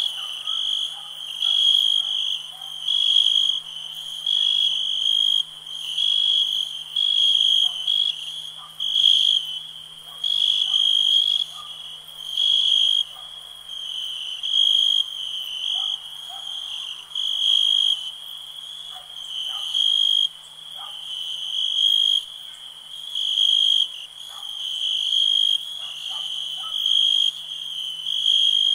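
Night chorus of frogs and insects: a high, even chirp repeats about once a second, with scattered faint, lower short calls and a faint steady hum beneath.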